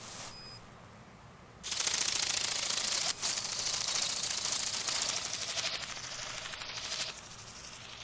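Bionic Bird robotic bird's flapping wings and motor giving a rapid, loud rattling buzz in flight. It starts about two seconds in, dips briefly around three seconds, and cuts off about a second before the end.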